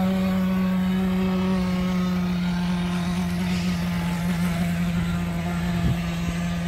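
Model boat's brushed 550 electric motor running at high speed, a steady whine that holds one pitch.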